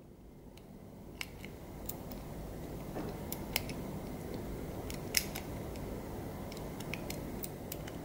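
Number wheels of a small brass three-wheel Master Lock combination padlock being rolled by thumb, giving irregular small sharp clicks, sometimes a couple a second, over faint room noise. Each wheel is turned through its numbers under shackle tension, feeling for give to find the combination.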